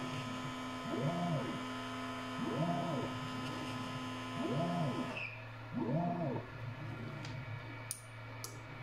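Stepper motors of a converted Kingroon KP3S Pro S1 pick-and-place machine whining as the head moves from position to position. There are four moves, each a tone that rises and falls in pitch as the motor speeds up and slows down, over a steady electrical hum.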